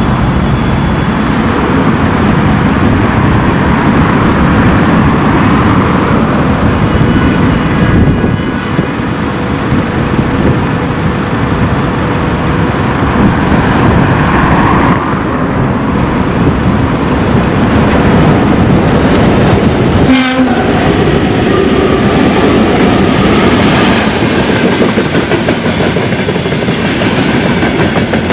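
Electric trains passing: an ED9M electric multiple unit approaching, then a VL80S electric locomotive hauling a long freight train of gondola wagons close by. Steady loud rumble of wheels and wagons with clickety-clack over rail joints, and a train horn sounding.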